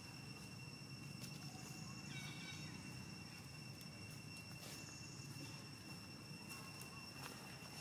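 Faint outdoor ambience: insects droning with two steady high tones over a low rumble, a short chirp about two seconds in and a few light clicks.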